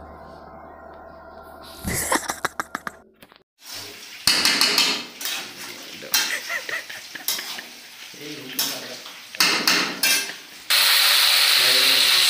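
A metal spatula stirs and scrapes in a metal kadhai (wok), clattering repeatedly against the pan. About 11 seconds in, a steady loud sizzle of chicken frying in oil takes over.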